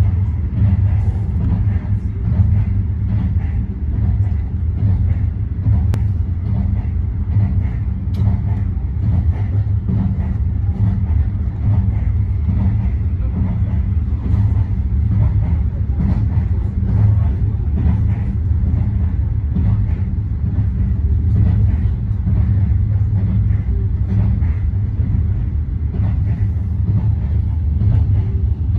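Steady low rumble of a Standard Gauge Railway passenger train running at speed, heard from inside the carriage.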